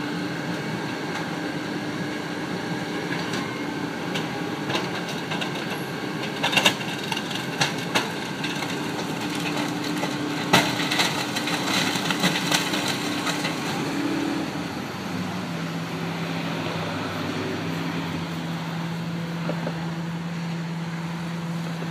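Rear-loading garbage truck running its hydraulic packer with the engine held at a steady pitch, with several sharp metal clanks and bangs partway through. About fifteen seconds in the engine note drops to a lower steady hum.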